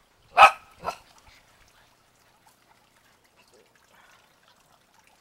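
A dog barking twice, two short barks about half a second apart, near the start.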